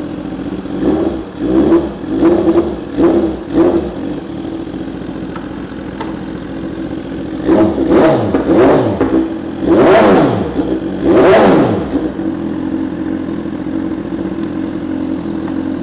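BMW S1000RR's 999 cc inline-four, the earlier generation without ShiftCam variable valve timing, idling warm and being blipped on the throttle. There are five quick short blips in the first four seconds, then several longer, harder revs between about seven and twelve seconds in, each falling back to a steady idle.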